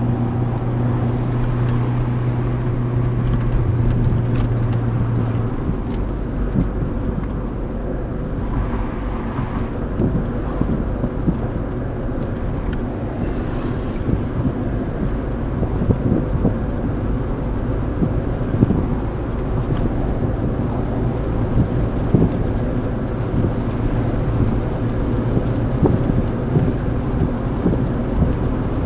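Cabin sound of a 1993 SAAB 900 Turbo S under way: its 2.0-litre turbocharged 16-valve four-cylinder engine with tyre and road rumble. A steady engine hum for the first five seconds or so gives way to a rougher mix of engine and road noise with occasional small knocks.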